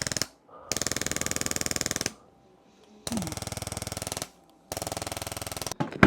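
Handheld percussion massager hammering on the shoulder in four runs of about a second each, with rapid, evenly spaced strikes and short pauses between the runs. A single sharp click comes at the very end.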